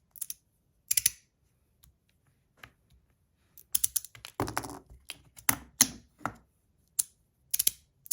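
Budget free-floating magnetic slider fidget being slid back and forth, its magnets snapping into place with sharp clicks at irregular intervals, several in quick pairs. About four and a half seconds in comes a longer, fuller rattle.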